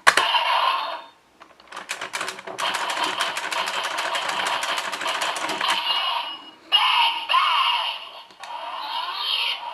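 DX Geartlinger toy morpher playing its electronic sound effects through its small built-in speaker in Megazord mode: a sharp burst, a run of fast, even clicks lasting about three seconds, then more electronic effects.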